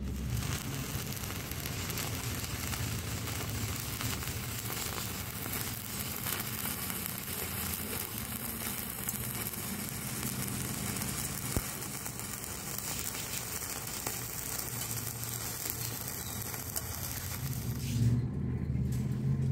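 Stick-welding arc from a 2.0 mm electrode at 55 amps DCEP running a bead on thin sheet metal: a steady hiss with fine crackle. The arc stops near the end, leaving a low hum.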